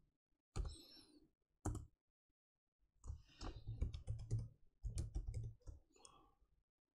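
Faint computer keyboard typing: two single keystrokes about a second apart, then a quick run of keystrokes lasting about three seconds.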